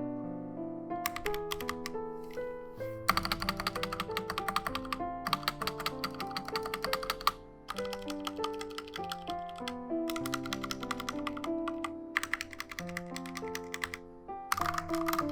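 Typing on a Helen 80 custom mechanical keyboard with HolyTom V2 switches and XDA keycaps: bursts of fast keystrokes broken by short pauses, over background music of held notes.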